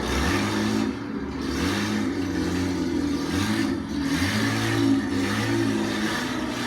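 Sports racing car engines accelerating past, each climb in pitch broken by a drop at an upshift, several times over.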